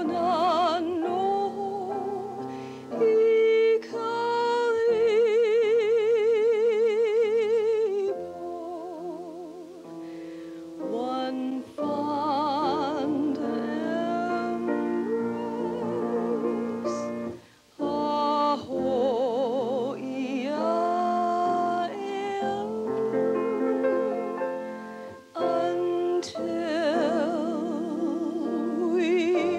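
A solo singer in an operatic style, with a wide vibrato on long held notes, accompanied by piano. The song breaks briefly between phrases twice, in the second half.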